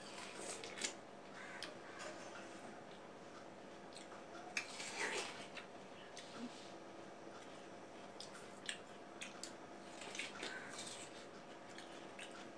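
Two people biting and chewing slices of watermelon: short, irregular bites and mouth sounds, over a faint steady hum.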